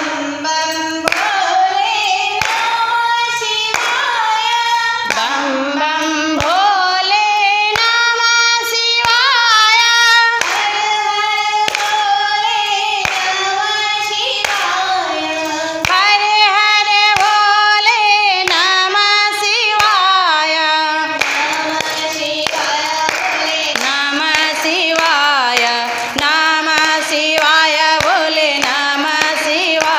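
Women singing a Hindu devotional bhajan, with steady hand-clapping keeping the beat.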